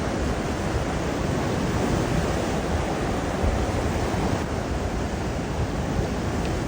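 Sea surf washing in a steady rush, heaviest in the low end, with wind on the microphone.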